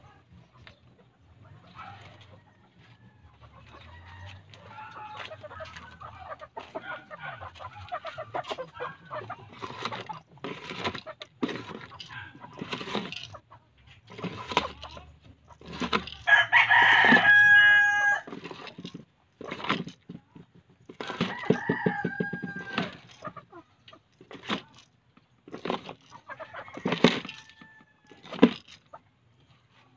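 Chickens clucking in a pen, with a rooster crowing loudly about halfway through, followed a few seconds later by a shorter pitched call.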